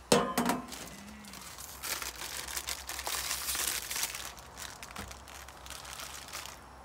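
Plastic packet of ready-made noodles crinkling and rustling as the noodles are pulled out of it with chopsticks, after a brief clatter at the start as the stainless pot lid is lifted off.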